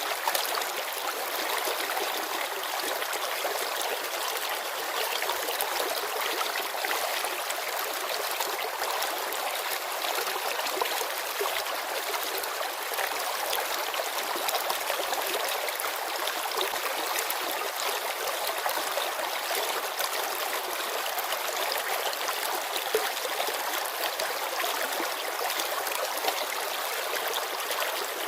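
Mountain river flowing over stones: a steady, even rush and babble of water.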